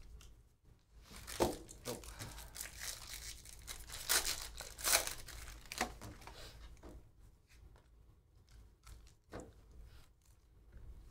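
A foil trading-card pack wrapper torn open and crinkled, the loudest tearing about four to five seconds in. After that, only a few light clicks as the cards are handled.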